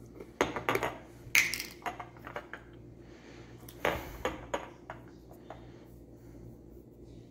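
Small glass spice jar and its plastic lid knocking and clinking against a granite countertop: a scatter of separate clicks, one with a short ring about a second and a half in, over a low steady hum.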